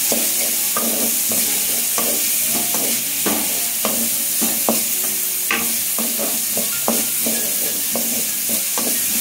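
Chopped onion, carrot, beans and capsicum sizzling in hot oil in a metal kadai, with a steady hiss. A wooden spatula scrapes and knocks against the pan in irregular strokes as they are stir-fried.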